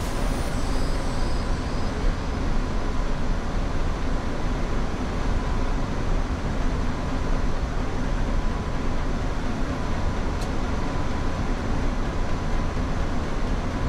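Steady flight-deck noise of a Boeing 787 in flight: a low, even rush of airflow and air conditioning, with a faint steady tone above it.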